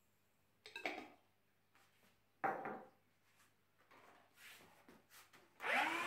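Uncooked rice grains poured out of a glass clattering and scattering onto a tiled floor in two short pours, followed by light handling knocks. Near the end a CLEANmaxx cordless cyclone stick vacuum switches on, its motor whine rising briefly as it spins up and then running steadily.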